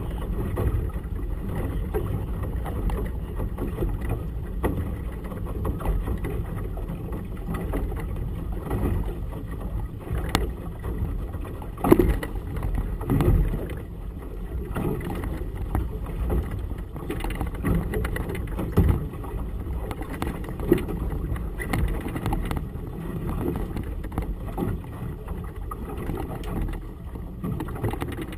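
Muffled, low wind buffeting on the camera with choppy water slapping against a small boat's hull, and a few sharper knocks, the loudest about twelve and nineteen seconds in.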